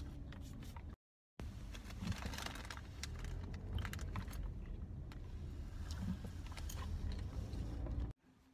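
Car cabin noise while driving: a steady low rumble of road and engine, with scattered light clicks and rattles. The sound drops out briefly about a second in and cuts off near the end.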